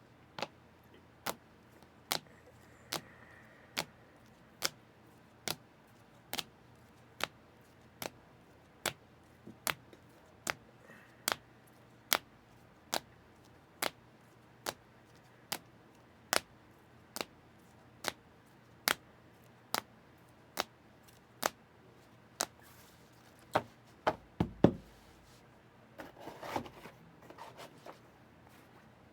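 Sharp light taps repeated at an even pace of about one a second, some thirty in all, as trading cards are set down one at a time on the table; a few louder knocks come near the end, followed by a brief rustle.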